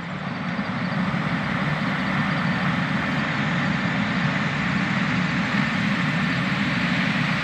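A heavy engine running steadily, fading in over about the first second.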